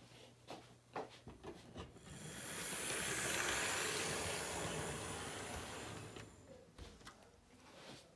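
HO scale model train passing close by: a whirring rush of motor and wheels on the track that swells, peaks and fades over about four seconds, with light clicks of wheels crossing the rail joints before and after.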